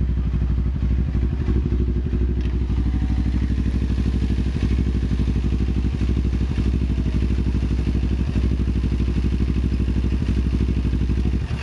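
Motorcycle engine running steadily at an even, unchanging pitch.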